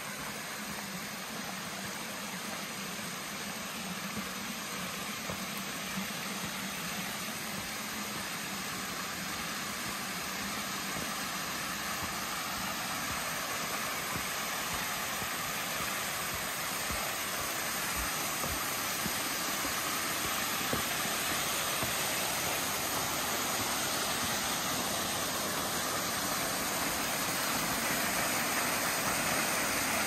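Rushing water from a mountain waterfall and the rocky stream below it, a steady noise that grows slowly louder.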